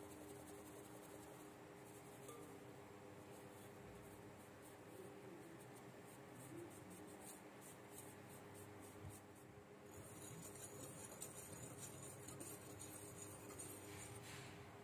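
Faint, rhythmic scratching of a fine metal mesh sieve being shaken and tapped as flour sifts through it, a few strokes a second.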